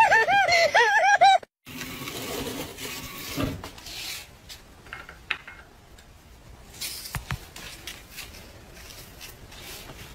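A man's loud, high, wavering cries, cut off abruptly after about a second and a half. After that there is only faint rustling with a few light taps.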